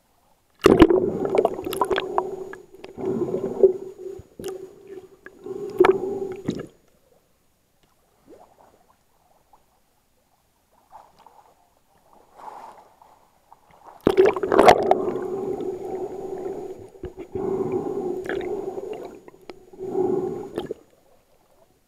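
Water gurgling and sloshing over an action camera's waterproof housing as it dips under the sea surface, with many sharp clicks, in two long stretches with a near-silent pause between them.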